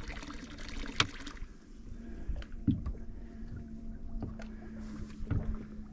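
Boat live-well pump motor running with a steady hum, switched on by the helm panel, with a few sharp clicks over it.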